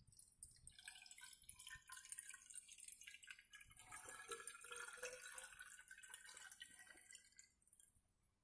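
Oxalic acid solution being poured into a glass measuring cylinder: faint trickling and dripping that dies away near the end.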